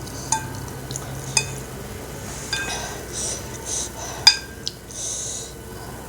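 Spoon or fork clinking sharply against a bowl a few times, the loudest clink about four seconds in, with short eating sounds of noodle soup between the clinks.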